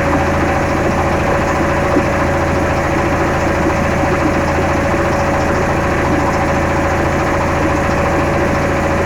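An engine running steadily, with a constant hum and fine rapid pulsing that does not change.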